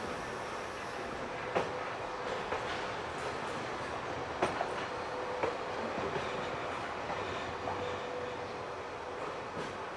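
A train rolling along the rails at a steady pace, with a few sharp clacks of wheels over rail joints.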